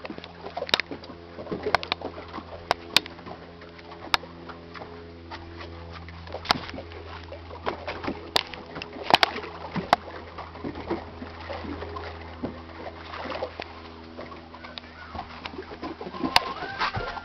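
Water slapping against the hull of a small fishing boat on choppy water: irregular knocks and splashes over a steady low drone.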